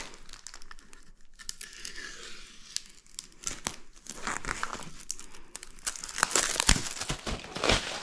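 Packaging from the ceiling fan's parts being handled, crinkled and torn open: an irregular run of crackles that grows busier over the second half.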